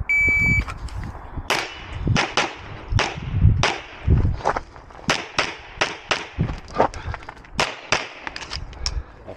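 An electronic shot timer gives one start beep, then a pistol fires about twenty quick shots in fast pairs and short strings while the shooter moves through a practical shooting stage.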